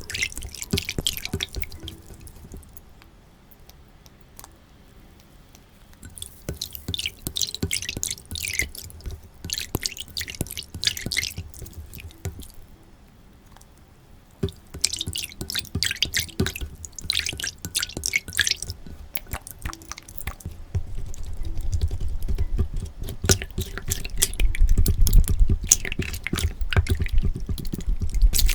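Slime being squeezed and worked by hand, giving spells of quick sticky clicks and pops with short quiet pauses between. A low rumble joins in during the last several seconds.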